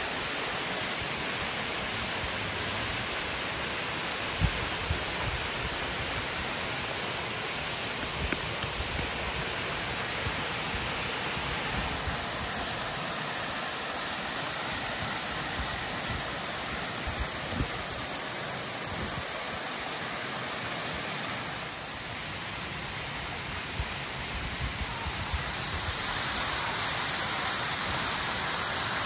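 Waterfall pouring over rocks into a pool: a steady rush of falling water, its tone shifting slightly a few times.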